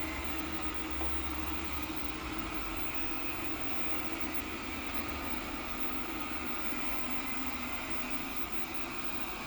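Everybot 3i robot cleaner running steadily in spot-cleaning mode: an even motor hum with a faint high whine over a hiss.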